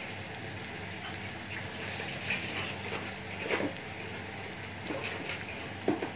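Chopped garlic frying in hot ghee with cumin and chillies in a small tempering pan, sizzling and crackling steadily with scattered pops, a couple of them sharper. The garlic is being browned for a tadka.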